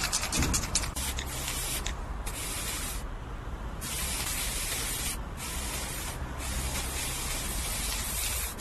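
Aerosol spray-paint can sprayed in several long bursts of hiss with short breaks between them, after a few sharp clicks in the first second.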